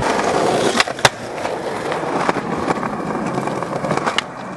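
Skateboard wheels rolling over rough asphalt with a steady rumble, and sharp clacks of the board twice about a second in and twice more near the end.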